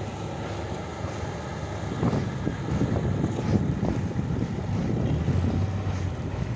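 Wind buffeting the microphone over the low rumble of a 4x4's engine climbing a sand hill, growing louder about two seconds in.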